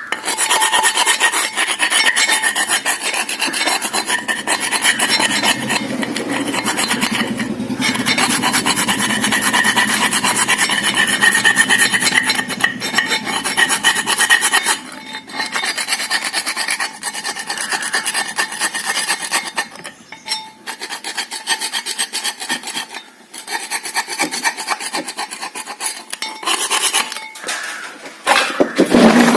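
Continuous rasping, scraping noise, with a few short breaks in the second half.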